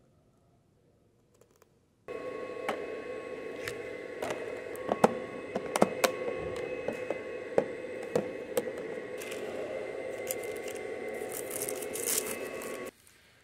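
Clicks and scrapes of a plastic meal-prep container and its clear lid being handled, with a wooden fork knocking against it, over a steady hum with several held tones. The sound begins about two seconds in and cuts off suddenly near the end.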